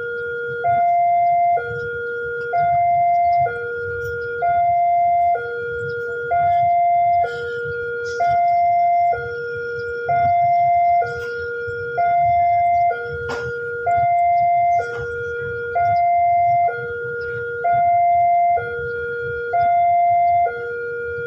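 Electronic railway level-crossing alarm sounding a repeating two-tone "teng-tong", alternating high and low tones about a second each, warning that a train is approaching.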